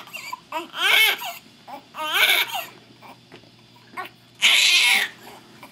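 Newborn baby crying, minutes after birth: three short wailing cries, the last one harsher.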